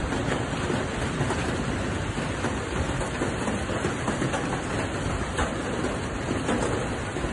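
Steady rain falling: an even hiss with small scattered drop taps.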